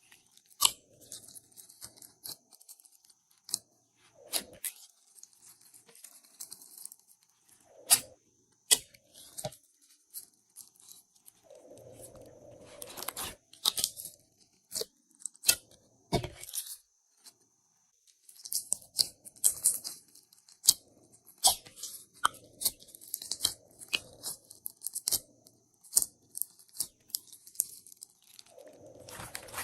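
Hands kneading and stretching glossy slime: irregular sticky pops and crackles, with short louder clusters now and then.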